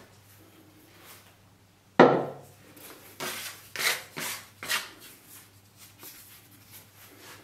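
A sharp knock on a wooden tabletop about two seconds in, then a plastic dough scraper scraping across the floured wood in several short strokes, fainter towards the end.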